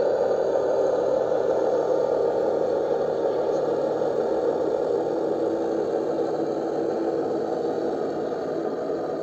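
Remote-control Scania R730 truck model driving slowly, giving a steady mechanical running sound with some rattle.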